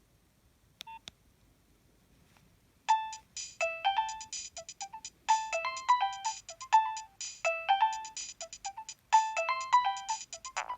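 Nokia 3120 mobile phone playing one of its preloaded ringtones: a fast melody of short, separate synthetic notes that starts about three seconds in, after a brief beep about a second in.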